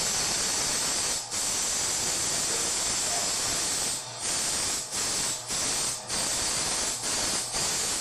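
A steady, loud hiss, strongest in the high register, broken by brief gaps about a second in and then every half second to a second in the second half.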